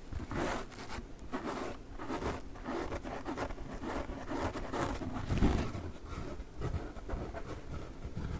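Sponges from a sponge pack being rubbed and scratched in quick repeated strokes, about two to three a second, with a heavier, deeper rub about five seconds in.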